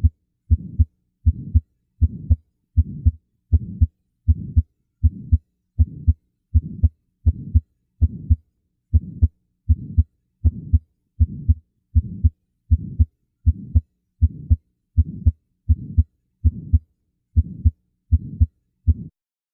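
Recorded heart sounds at about 80 beats a minute, with a murmur. Each beat has two short sounds and a steady whooshing sound filling the gap between them, which is the pattern of a systolic murmur.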